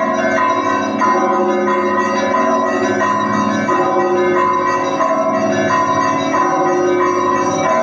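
Russian Orthodox monastery bells ringing together: small high bells struck in a quick repeating pattern, about twice a second, over the sustained ring of deeper bells.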